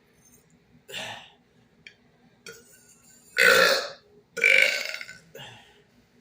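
A man burping deliberately during a burping challenge, drinking almond milk to bring the burps up. There is a short burp about a second in, then two loud, longer burps back to back after about three and a half seconds, trailing off into a smaller one.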